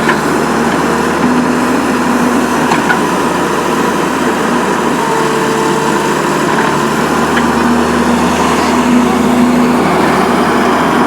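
Hydraulic excavator's diesel engine running steadily under work.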